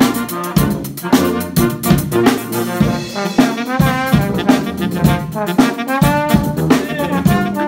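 A brass band playing: trumpets and trombone over a bass line and a drum kit keeping a steady beat. Through the middle the horns hold notes that waver in pitch.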